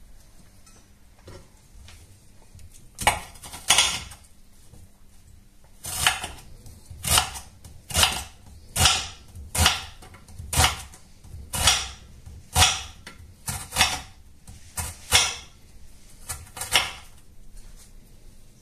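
Chef's knife chopping an onion on a cutting board: sharp knocks of the blade striking the board, a few about three seconds in, then a steady run of about one a second that stops shortly before the end.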